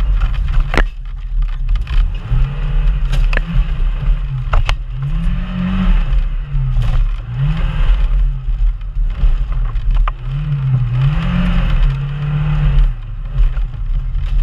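Off-road 4x4's engine being revved up and down repeatedly as it works over rough ground, with sharp knocks and clatter from the body and suspension now and then.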